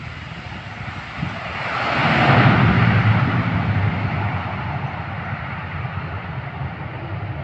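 Airliner engines running as the aircraft moves on the runway, swelling to a peak about two and a half seconds in, then easing to a steady drone.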